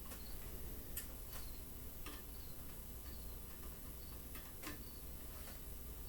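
Faint, scattered light clicks and taps, about five in all and irregularly spaced, as the small parts of a laser engraver's frame are handled and lined up, over a low steady hum.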